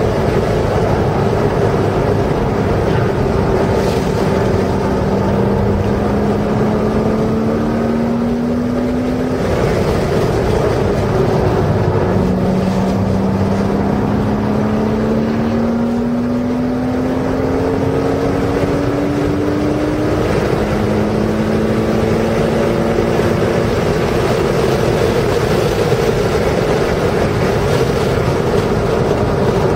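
Porsche engine heard from inside the car on a racetrack lap, its pitch climbing slowly under throttle and dropping back at a few gear changes, over heavy wind and tyre noise.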